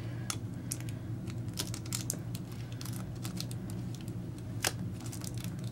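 Fingernails picking and scratching at the plastic shrink wrap on a Blu-ray steelbook case to find an edge to peel: irregular small clicks and ticks. A steady low hum sits underneath.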